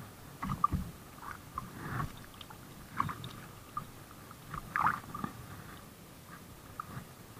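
Soft water sloshing with small splashes from a fish hanging on the line at the surface. A few brief splashes or handling knocks stand out, the loudest about three quarters of a second in, at three seconds and near five seconds.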